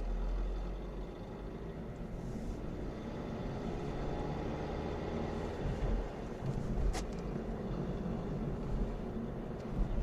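Astra K's 1.6 CDTI diesel engine running steadily, with the rattle the owner puts down to the timing chain. A single sharp click about seven seconds in.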